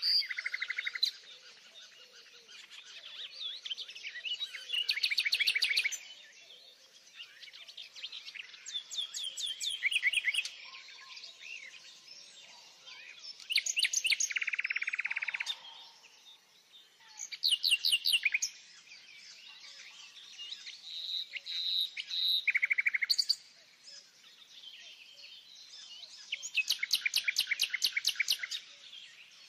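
Songbirds singing: short, bright phrases of rapid repeated high notes come about every four seconds, with quieter chirps between them.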